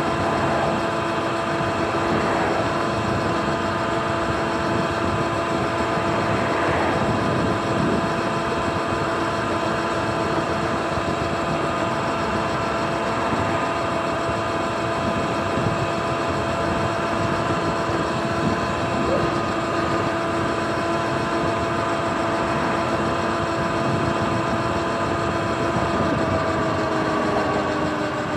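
Sur-Ron electric dirt bike's motor whining steadily at cruising speed over a rush of wind and road noise. Near the end the whine falls in pitch as the bike slows.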